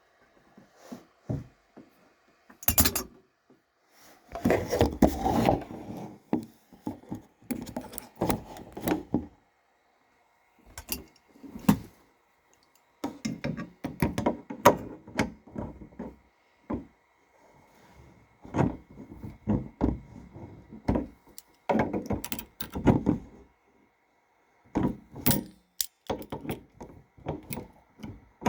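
Hand tools at work on a diesel heater fuel tank fitting: irregular knocking, clicking and clinking of a wrench and vice grips against the metal fitting and tank as the nut is tightened, in scattered bursts with short pauses between them.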